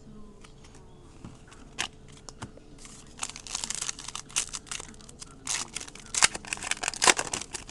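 Foil wrapper of a Donruss Elite football card pack crinkling and tearing as it is ripped open by hand: scattered crackles at first, then a dense run from about three seconds in, with the sharpest snaps near the end.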